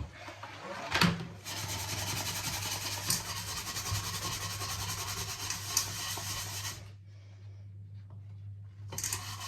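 Stiff-bristled scrubbing brush scrubbing a ribbed shower hose with soapy water, a steady scratchy rasp. There is a brief knock about a second in. The scrubbing pauses about seven seconds in and starts again near the end.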